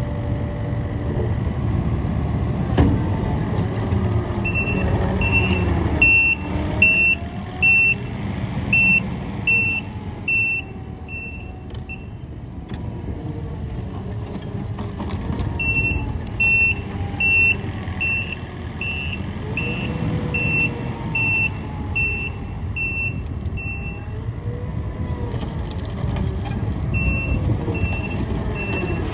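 Takeuchi TL12R2 loader running under work, its engine note rising and falling. Its reversing alarm beeps in three runs of steady, evenly spaced beeps as the machine backs up.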